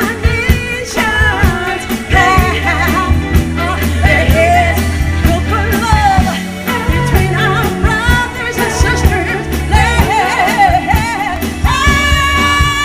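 A live band and women's vocals performing a Motown song, the singing wavering with vibrato over a steady bass line. Near the end the voice stops and held instrumental notes take over.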